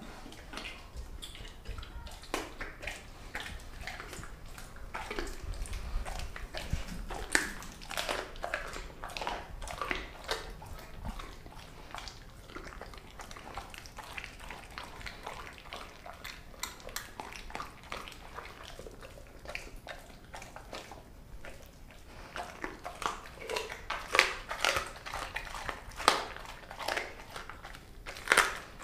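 Doberman chewing raw, partly frozen chicken feet and legs: irregular crunches and cracks of bone, densest and loudest near the end.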